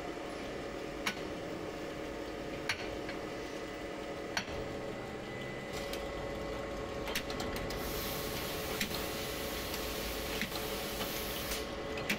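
Rotary carbonated-drink filling and screw-capping machine running with glass bottles: a steady mechanical hum with sharp clicks about every second and a half, and glass clinking. Midway a hiss sets in and lasts about four seconds.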